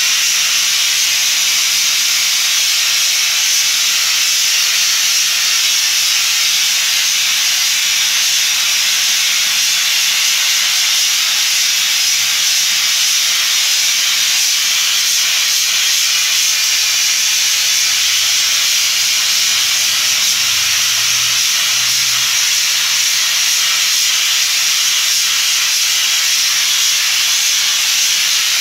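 Spray gun hissing steadily and without a break as it sprays spray-chrome metallizing solution onto a glass goblet.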